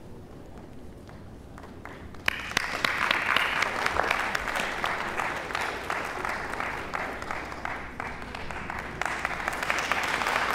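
Audience applauding, starting suddenly about two seconds in and continuing as a dense patter of many claps.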